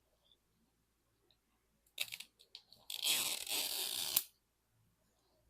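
Plastic wrapping on a Mini Brands capsule ball being torn and crinkled: a few small clicks about two seconds in, then a second and a half of crackling tearing about three seconds in.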